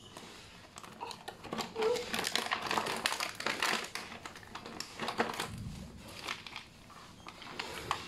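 Thin clear plastic packaging bag crinkling and rustling as it is pulled open and handled, busiest in the middle few seconds.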